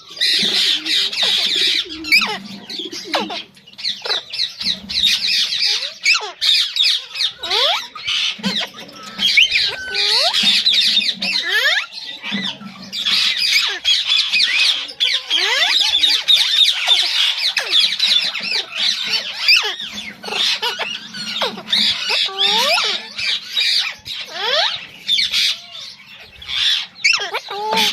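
Raw parrots (Alexandrine parakeets) squawking and chattering without pause, a stream of overlapping harsh calls that rise and fall in pitch.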